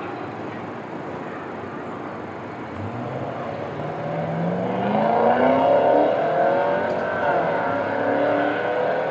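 A vehicle accelerating over a steady background hum. Its pitch rises from about three seconds in, dips briefly around seven seconds, then climbs again.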